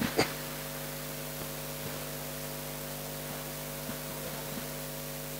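Steady electrical mains hum with a faint hiss, made up of several fixed low tones, and a single short knock just after the start.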